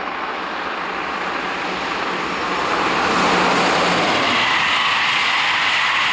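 Electric locomotive-hauled passenger train passing at speed. The noise swells over the first three seconds as the train nears, with a low hum fading out about four seconds in, then holds as a steady rush of the coaches' wheels on the rails.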